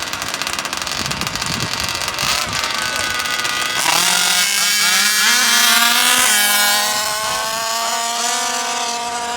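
Small two-stroke gas engine of a large-scale RC car revving hard, its pitch climbing steeply about four seconds in and then holding high as it accelerates.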